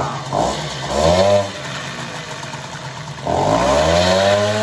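Small vintage motorcycle engine revving: two quick rises and falls in pitch, then a longer climb about three seconds in that holds at high revs.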